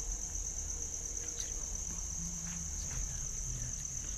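Crickets trilling in a steady, unbroken high-pitched drone, with a low rumble underneath.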